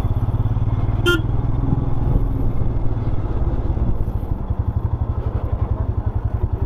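Royal Enfield Himalayan's single-cylinder engine running under way, its exhaust pulsing evenly. A short horn beep sounds about a second in.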